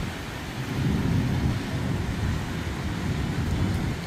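Low rolling thunder during a rainstorm: a rumble that swells about half a second in and eases near the end, over a steady hiss of rain.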